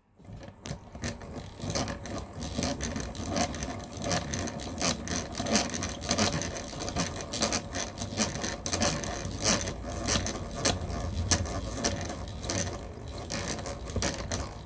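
Old hand-cranked eggbeater drill turning, its gears clicking and whirring as the bit grinds its way through a silver ring band.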